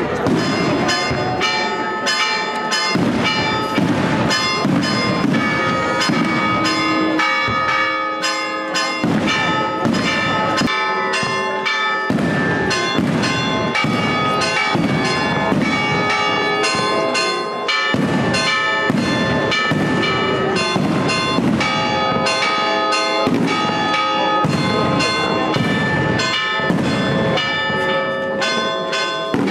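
Church bells ringing rapidly and without pause, strike after strike, their ringing tones overlapping.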